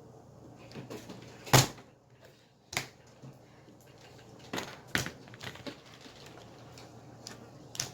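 Scattered sharp knocks and clicks of things being handled, the loudest about a second and a half in, a few more in a cluster past the middle and one near the end.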